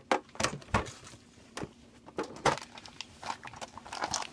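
A metal Shopkins tin being opened by hand: a string of separate clicks and knocks as the lid comes off and the packages inside are handled.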